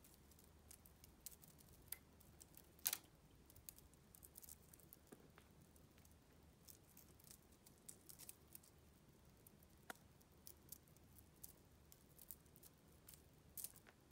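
Near silence with faint, scattered clicks and rustles, the loudest about three seconds in, as a kitten plays with a wand toy in a wicker basket.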